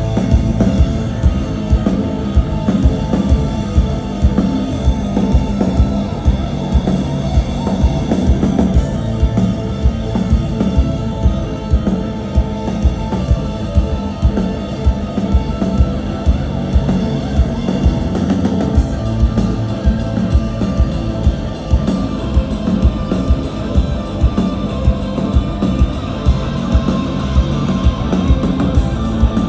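Live rock band playing: a drum kit keeps a steady beat under electric guitars and bass.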